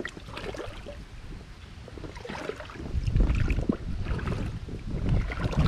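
Creek water sloshing and splashing unevenly as someone moves through it, louder in surges over the last few seconds, with low wind rumble on the microphone.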